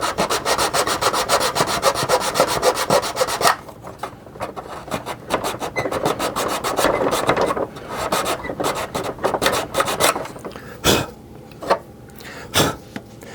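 Needle file rasping on a small plastic part, filing it flat: quick, even strokes, turning slower and softer after about three and a half seconds, with a few light knocks near the end.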